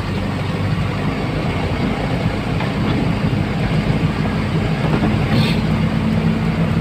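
Truck engine running steadily while driving, heard from inside the cab, with the rattle and rumble of the road coming through.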